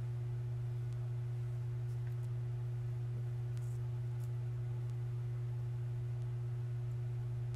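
Steady low mains electrical hum with a fainter higher overtone, unchanging throughout, with a few faint light ticks in the middle.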